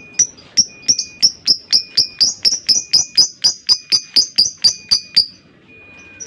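Lovebird ngekek: a long, rapid chattering run of sharp high chirps, about five a second, lasting some five seconds before it stops short.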